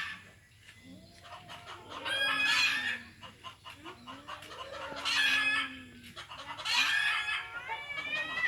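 Two cats yowling at each other in a fight: long, low wavering yowls overlapped by higher-pitched cries, coming in bouts with short lulls between.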